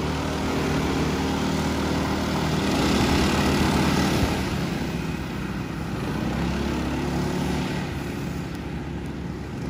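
Racing go-kart engines running on the track, a mix of small engines whose sound swells as karts pass close about a third of the way in, then fades off.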